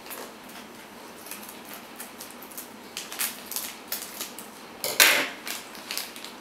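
Small plastic sauce sachet rustling and being snipped open with scissors: scattered light clicks and crinkles, with one louder crinkle about five seconds in.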